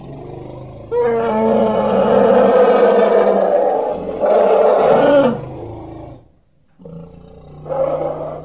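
Elephant calf calling: a long, loud cry lasting about four seconds, starting about a second in, then a second cry starting near the end.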